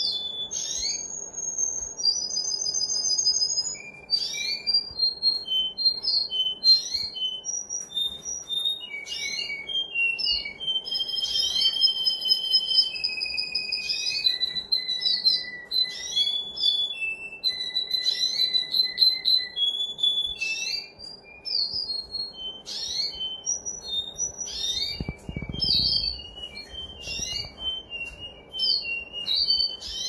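A canary singing a long, continuous song of clear whistled notes, rapid trills and quick rising and falling sweeps.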